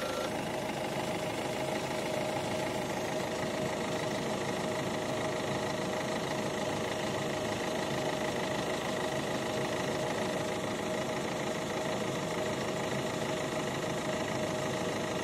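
Ford C-Max 1.6 TDCi four-cylinder diesel engine idling steadily, heard close up in the open engine bay. The engine is warm and running so that the water pump circulates the coolant during the flush.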